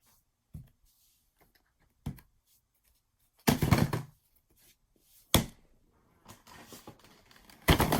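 Boxes and packaging being handled on a hard surface: several separate knocks and thuds, the loudest a short cluster about three and a half seconds in, with a softer rustle of packaging just before the end.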